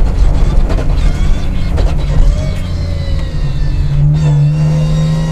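BMW 325 Group A rally car's straight-six engine heard from inside the cabin under load on a wet stage, with revs rising and falling at first. About four seconds in, it settles into a steady, even note.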